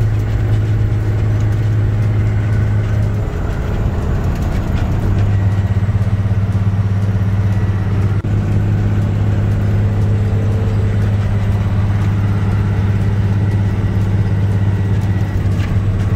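Kenworth W900 semi truck's diesel engine droning steadily under way, heard from inside the cab. The engine note drops about three seconds in and comes back up about two seconds later.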